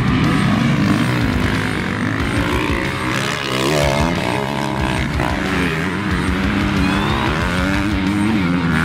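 Dirt bike engines revving hard, their pitch rising and falling again and again as the throttle opens and closes and the gears change.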